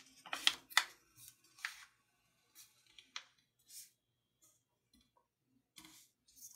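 A sheet of letter paper rustling and crinkling under the hands as it is folded and creased flat, in short scattered bursts, two of the louder ones within the first second.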